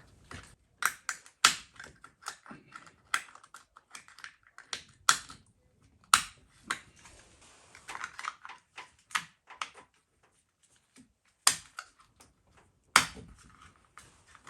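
Irregular clicks and taps of small parts being handled and fitted by hand, with a few sharper knocks, the loudest two near the end.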